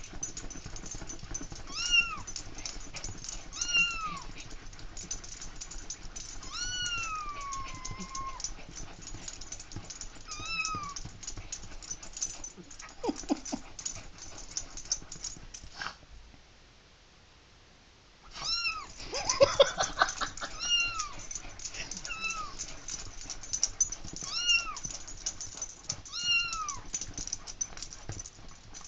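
Kitten-meow ringtone playing from a cell phone: recorded kitten meows repeat about every two seconds, one longer meow sliding down in pitch. The meows stop for a couple of seconds just past halfway, then resume. Frequent short clicks and scuffling run throughout, with a louder flurry of noise just after the meows start again.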